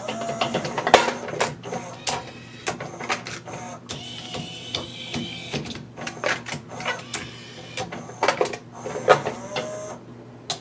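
Multi-disc CD changer mechanism cycling with its cover off, swapping discs: a run of mechanical clicks and clunks over a motor whir, with a high whine for a second or so about four seconds in.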